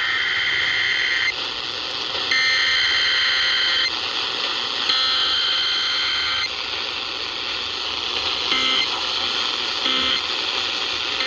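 Emergency Alert System SAME digital header over NOAA Weather Radio: three harsh, steady data bursts of about a second and a half each, a second apart, then two short end-of-message bursts near the end, over a steady radio hiss. The tones mark a Required Weekly Test.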